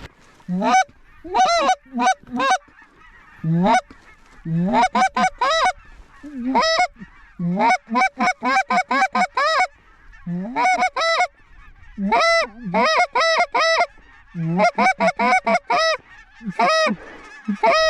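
Goose honks and clucks in quick runs of several calls with short pauses between runs, each call breaking sharply upward in pitch.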